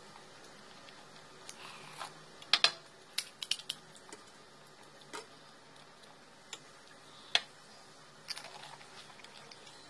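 Crisp panipuri (golgappa) shells cracking and crunching as they are poked open by fingertip and bitten: a scatter of short, sharp cracks and clicks, the loudest a quick pair about two and a half seconds in.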